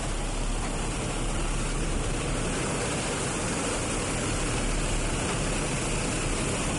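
Steady rush of wind and aircraft engine noise through the open door of a jump plane in flight.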